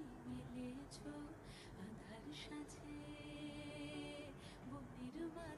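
Soft background music of long held notes, with a few light clicks and scrapes of a spatula against a non-stick kadai as fried prawns are lifted out of the oil.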